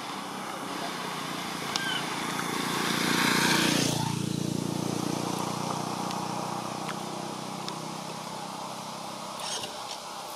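A motor vehicle passing by on the road: its engine and tyre noise swell to a peak about three and a half seconds in, then drop away, the engine hum fading slowly after it.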